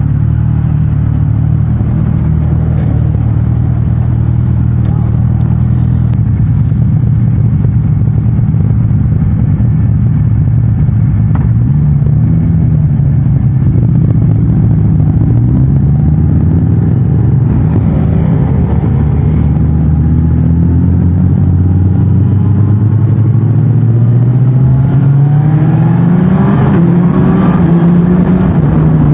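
Suzuki GSX-S1000GT's inline-four engine through its stock exhaust, running under way, with several rises in pitch as it accelerates. The strongest climb comes near the end.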